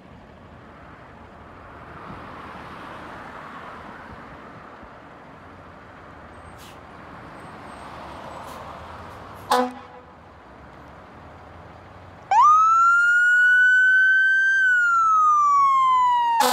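Fire engine pulling out of its station: the diesel engine runs under a steady rumble. A little past halfway comes one short air-horn blast. Then the siren starts, a wail that climbs quickly, holds, and begins to fall.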